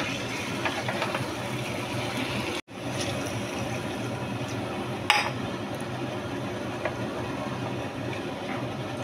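A spatula clinks against a kadhai while thick paneer masala is stirred. Then water is poured from a glass into the pan, with liquid splashing and a sharp clink about five seconds in, over a steady hiss.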